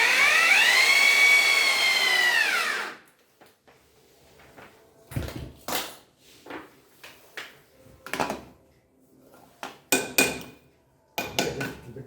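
A small electric motor, like a power screwdriver's, whines for about three seconds, rising in pitch and then falling as it winds down. It is followed by scattered knocks and clicks, which come closer together near the end.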